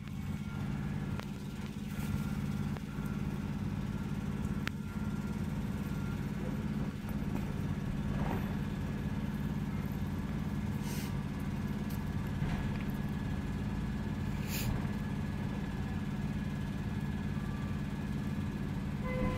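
Semi-truck's diesel engine idling steadily, heard from inside the cab.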